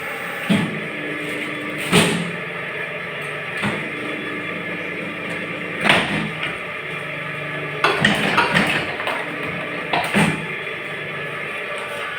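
Small two-mould gallon-cap moulding machine running with a steady hum, punctuated by sharp mechanical clunks every few seconds and a quick run of clicks about eight seconds in.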